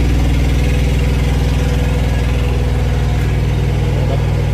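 Diesel engine of a semi truck idling close by, steady and loud.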